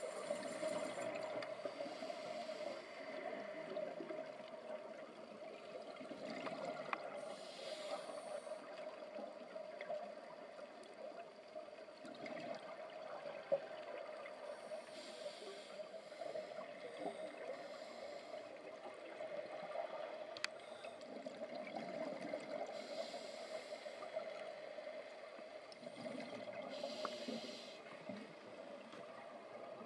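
A scuba diver breathing through a regulator underwater: a hiss every seven or eight seconds, with bubbling in between, over a steady hum.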